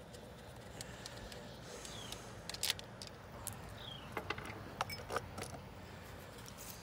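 Light metallic clicks and plastic rattles as the nuts come off the Salem Master chainsaw's side cover and the cover is lifted off the bar studs, with a cluster of sharp clicks in the middle.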